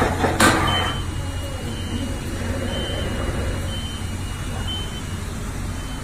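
Automatic wire crimping and seal-inserting machine at work: one sharp burst of noise about half a second in, then a steady low hum. Faint short high beeps repeat about once a second.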